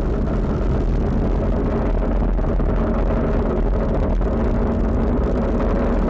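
Falcon 9 rocket's first stage, its nine Merlin engines firing during ascent: a steady, deep rumble.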